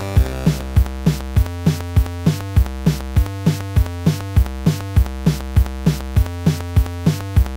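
Electronic background music: synthesizer lines over a drum-machine beat, with a kick drum hitting about three times a second.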